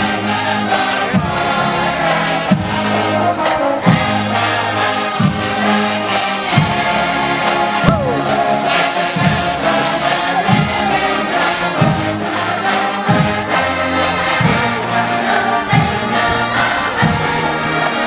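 Marching band brass section playing a tune in full chords, over a heavy low beat that falls about every 1.3 seconds.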